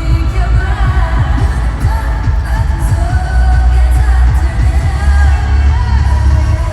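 K-pop girl group singing over a loud pop backing track with a heavy, steady bass.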